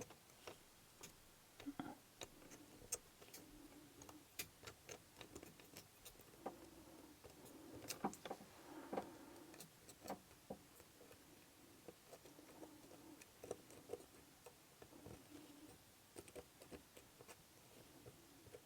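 Faint, irregular small metallic clicks and scrapes of a lock pick and tension wrench working the pins inside a challenge lock's keyway.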